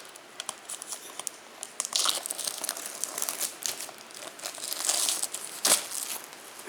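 Plastic shrink wrap being torn open and crumpled off a Blu-ray box set: a stream of crackles and crinkles, busiest in the middle, with one loud sharp crackle near the end.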